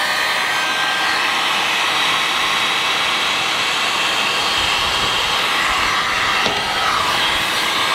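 Ozito handheld electric heat gun running steadily, its fan blowing hot air. It is shrinking heat-shrink tubing over a soldered wire joint on a solar panel cable.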